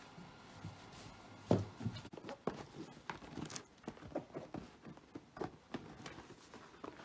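Belgian Shepherd Groenendael puppy playing and chewing on a toy: irregular small knocks and clicks, with one sharper knock about a second and a half in.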